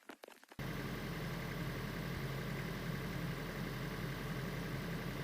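A few faint clicks, then, under a second in, a steady engine drone like a vehicle idling begins abruptly and holds evenly.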